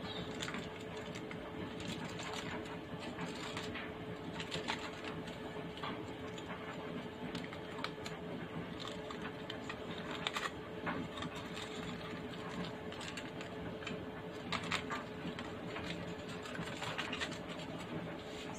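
Aluminium foil crinkling several times as it is handled over a roasting turkey, over a steady mechanical hum.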